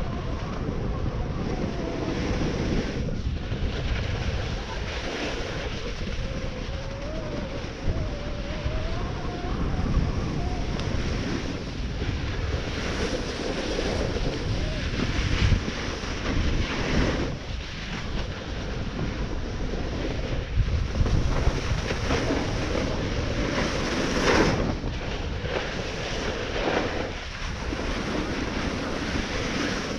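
Wind rushing over the microphone and a snowboard hissing and scraping across groomed snow during a run, swelling and easing as the board turns.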